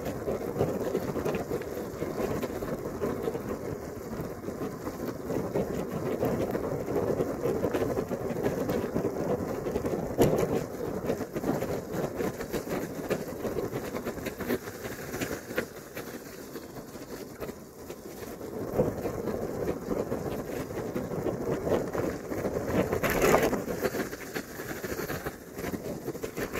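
Steady rushing of wind and rain on a bicycle-mounted camera riding through heavy rain, with many small ticks of raindrops striking the camera; it swells louder for a moment near the end.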